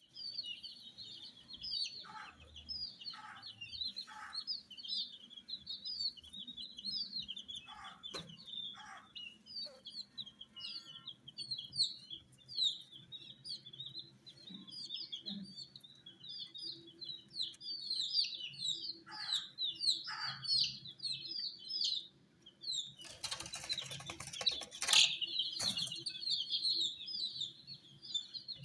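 A group of baby chicks peeping continuously, many short, high peeps overlapping one another. About 23 seconds in, a few seconds of loud rustling rise over the peeping.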